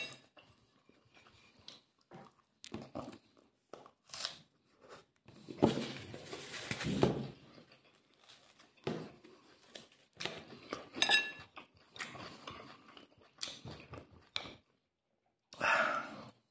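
A person eating close to the microphone: irregular chewing and crunching of crusty bread and meat, with a longer crackling rustle about six seconds in as the bread is handled. A brief metal clink of a fork on a plate comes about eleven seconds in.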